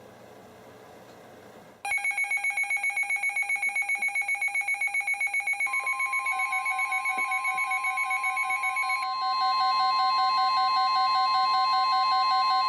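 Several weather alert radios go off together with rapid electronic beeping about two seconds in. About four seconds later the steady 1050 Hz NOAA Weather Radio warning alarm tone joins them. Together they signal that a warning, here a flash flood warning, is being broadcast.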